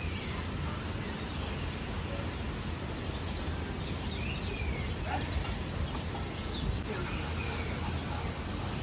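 Many birds chirping and calling at once in an aviary, short quick high chirps and whistles overlapping throughout, over a steady low rumble.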